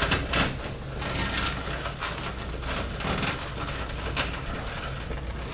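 Power-supply cables and connectors being handled and routed inside a PC case: light rustling, rubbing and small plastic knocks, over a steady low hum.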